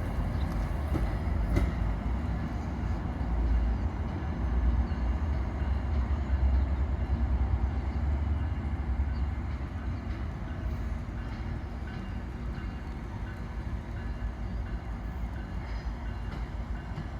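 MARC diesel commuter train running on the tracks: a steady low engine and wheel rumble with faint clicks, easing off slightly after about ten seconds.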